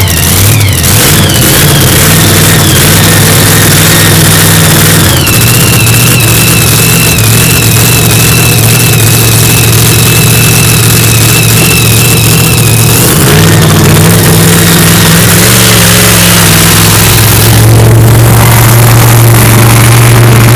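Modified pulling pickup's engine running loud while hooked to the sled, its note stepping to a new pitch twice, with a steady high whine riding above it for much of the time.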